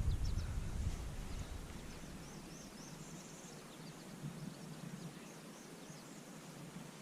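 Faint outdoor ambience with a bird chirping: short high notes in quick runs near the middle. A low rumble fades out over the first second or two.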